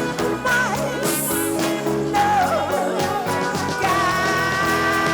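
Live band music with a singer's voice over the band; about four seconds in, steady held notes come in.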